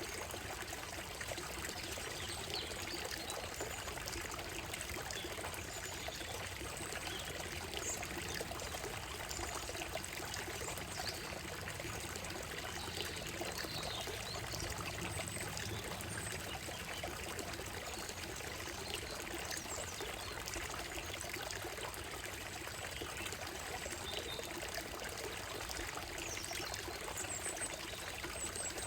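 Shallow stream running over a gravel bed and stones, a steady babbling flow, with several birds giving short, scattered high chirps and song phrases over it.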